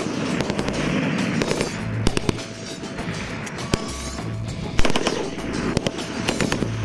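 Belt-fed machine guns firing short bursts and single shots, sharp cracks scattered through, over background music with a steady low beat.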